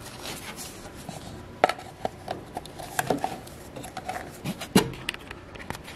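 Scattered light clicks and knocks of hand work at a small engine's oil fill, as the dipstick comes out and a plastic funnel is fitted into the fill hole; two sharper knocks stand out, one near the start and one near the end.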